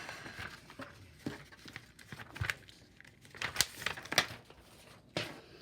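Paper crinkling and rustling as strips of old adding machine tape and paper tags are handled and pressed down, with scattered light taps and knocks.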